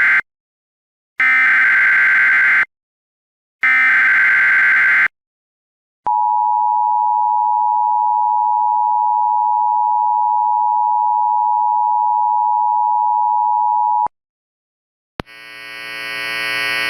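Emergency Alert System tones: the end of one SAME header data burst and two more full bursts, each a harsh electronic warble about a second and a half long with short gaps between, then the two-tone EAS attention signal held steady for about eight seconds and cut off sharply. About a second later a click is followed by a buzzy drone with many overtones fading in near the end.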